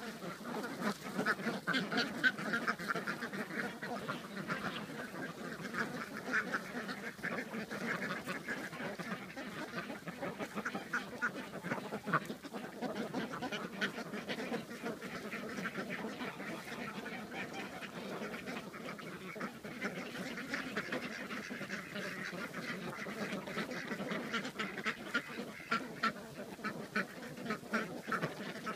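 A flock of domestic ducks quacking and chattering without a break, many birds calling over one another. The crackle of dry leaves being stirred runs under the calls as the ducks forage through the leaf bedding.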